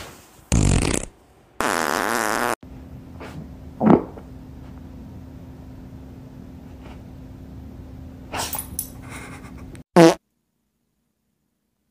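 Several short, loud farts in separate bursts, the longest about a second with a wavering pitch. They come between stretches of quieter room sound, with one last short burst near the end before the sound cuts out.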